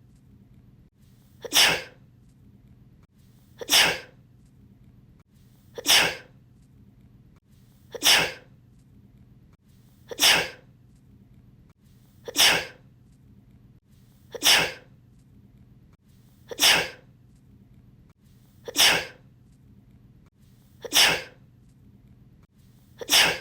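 A sneeze repeated at a perfectly steady rhythm, about one every two seconds, eleven times, like a looped sound effect.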